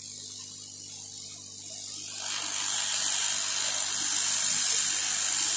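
Hot-air rework gun blowing on a circuit board to desolder a small component: a steady hiss over a faint low hum. The hiss grows much louder and fuller about two seconds in.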